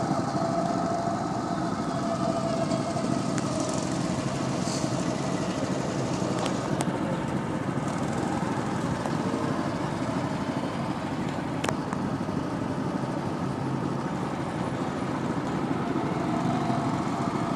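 Go-kart engines running at the track, a steady engine drone with a faint whine that comes and goes and a couple of sharp clicks.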